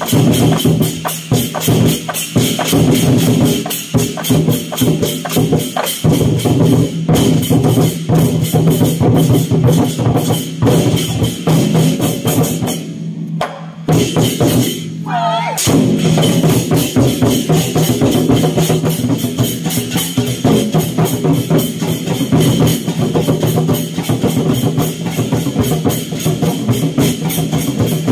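A troupe of Chinese barrel drums beaten with sticks in a fast, driving rhythm, with other percussion ringing over it. The drumming breaks off briefly about halfway through, then picks up again.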